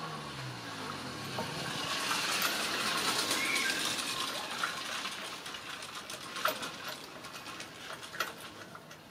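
A rushing noise swells and fades over a few seconds, then light metallic clicks as the front brake caliper is handled and fitted back over the drilled brake rotor.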